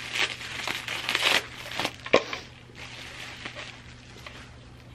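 Bubble wrap crinkling and rustling as a package is unwrapped by hand. The crackling is densest in the first second and a half, with a sharp click about two seconds in and fainter rustles after.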